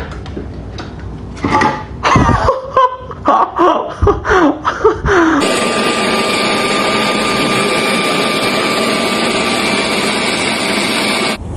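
First, a run of short voice-like calls sliding in pitch. About five seconds in, a Yardworks leaf blower starts blowing steadily with a thin whine, then cuts off suddenly near the end.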